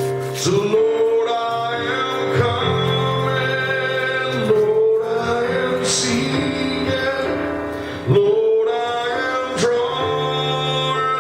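A man singing a slow gospel worship song over a recorded instrumental backing track, holding long notes in phrases of a couple of seconds.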